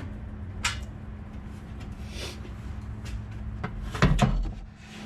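A few scattered clicks and knocks of objects being handled and set down, the loudest a heavy knock about four seconds in, over a low steady hum.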